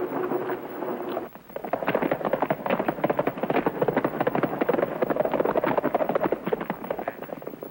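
A horse galloping, its hoofbeats a fast, dense clatter that begins about a second in.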